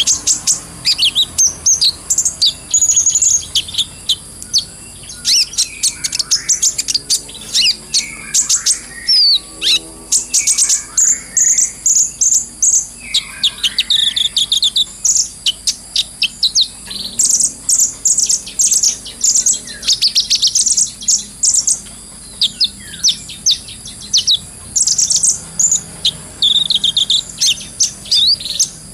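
Kolibri ninja sunbird singing: rapid high-pitched twittering and chattering trills, phrase after phrase with only brief pauses.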